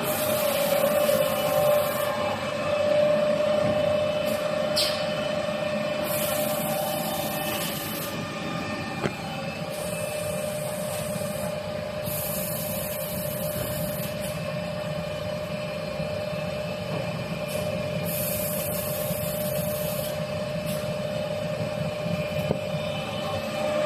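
Automatic toilet paper log saw cutting machine running: a steady machine hum with a constant tone, broken about five times by a high hiss lasting about two seconds each.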